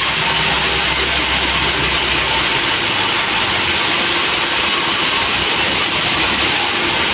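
Sawmill machinery running steadily with a loud, even noise; the low rumble underneath thins out about three seconds in.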